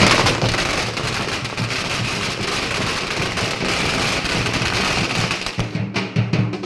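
A string of firecrackers crackling in a dense, continuous rattle of pops. Near the end the crackling thins and drum beats come in.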